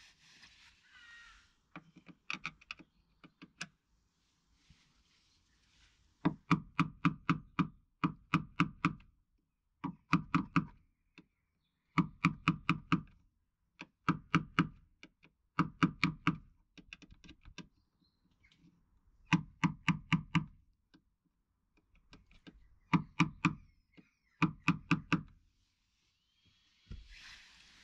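Bursts of quick, light metallic knocks, about six to a burst and repeated every second or two, as a pick tool works at a roof-rail speed nut in the sheet-metal housing of a VW Transporter's body to pry it out from underneath.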